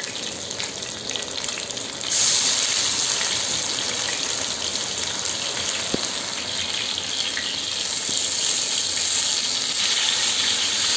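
Marinated trevally (paarai) fish pieces shallow-frying in oil on a dosa griddle, a steady sizzle that grows louder about two seconds in as the pieces are turned with a spatula. A single light tap comes about six seconds in.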